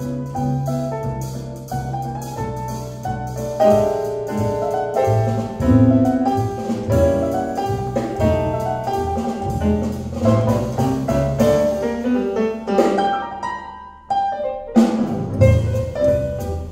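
Recorded jazz piano with drums and low bass notes, played from CD through YG Acoustics Carmel 2 loudspeakers. The music dips briefly about two-thirds of the way in, then carries on.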